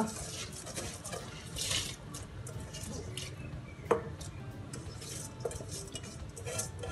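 Soaked, drained rice poured from a steel bowl into a steel pot of boiling water: wet splashing and bubbling, with a few sharp metal clinks of bowl against pot, the loudest about four seconds in.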